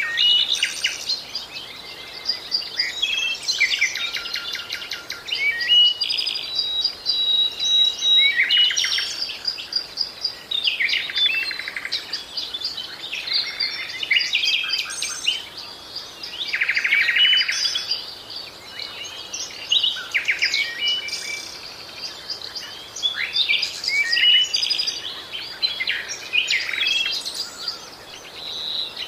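Many small songbirds chirping and singing at once, with overlapping chirps and quick rattling trills.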